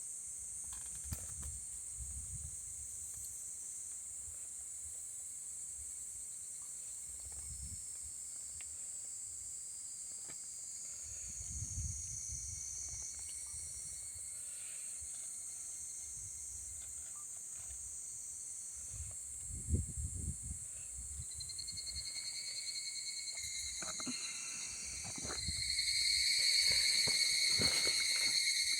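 Insect chorus chirring steadily at a high pitch. A second, lower insect song joins about two-thirds of the way in and grows louder near the end.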